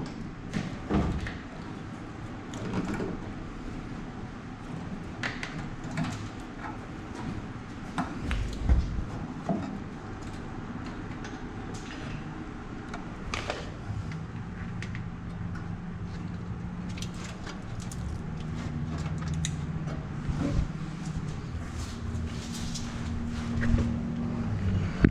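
Scattered clicks, knocks and rattles of hand work on a pickup's tail light wiring harness and its fastenings. A steady low hum joins about halfway through.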